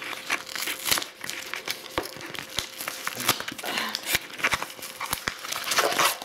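Shipping package being torn and crumpled open by hand: irregular crinkling and crackling with occasional sharp rips.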